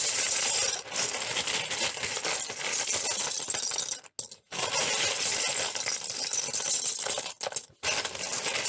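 Loose LEGO bricks clattering, a dense rattle of many small plastic pieces knocking together. It pauses for about half a second about four seconds in and dips briefly again near seven and a half seconds.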